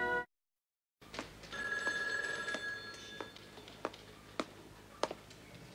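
Soft background music cuts off abruptly, then a moment of dead silence. Quiet room sound follows, with a steady high ring lasting about a second and a half and a regular series of footstep knocks about every half second.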